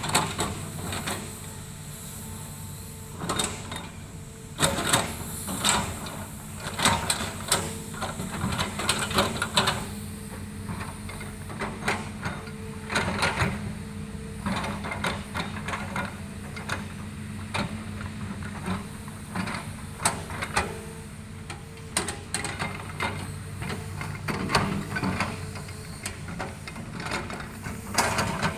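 Hydraulic excavator's diesel engine running steadily, with repeated metallic knocks and scrapes over it as the machine works.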